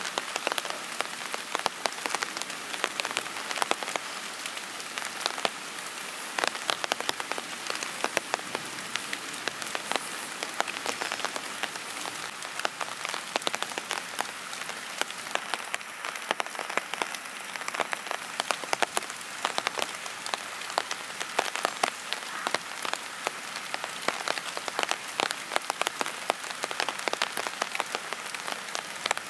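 Steady rain, with many individual drops landing in a dense run of sharp ticks.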